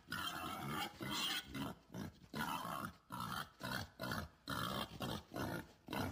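Wild pig squealing and screaming in distress, about two sharp cries a second, while a leopard has hold of it.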